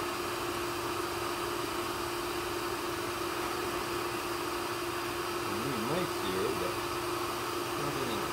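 Bee vacuum running steadily, its motor giving a constant hum and suction hiss through the hose as bees are sucked off the comb. About six seconds in, a brief wavering pitched sound rises over it.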